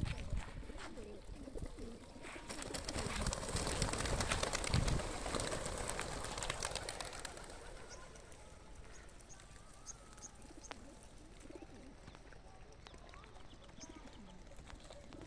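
A flock of racing pigeons bursts out of opened transport crates, a dense clatter of wing-flapping that is loudest in the first half, then thins out as the birds fly away.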